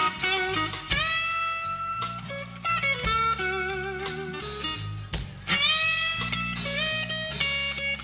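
Live slow blues with an electric guitar solo over bass and drums: notes bent upward into pitch, with a wavering vibrato on a held note, and steady drum hits underneath.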